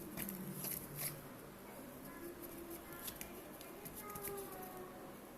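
Homemade glue-and-cornstarch slime being mixed and worked, with soft sticky clicks that come thickest in the first second or so.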